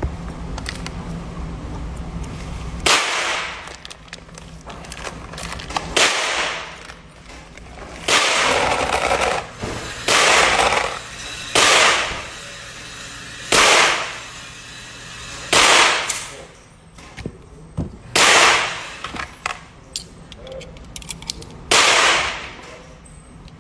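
Gunshots at a shooting range: about ten single shots at an uneven pace, one every two to three seconds or so, each followed by a trailing echo.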